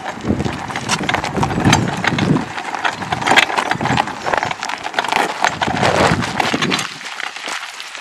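Footsteps and the knobbly rubber tyres of a hand-pushed mountain cart crunching over a gravel path, an uneven run of crunches and clicks that thins out near the end.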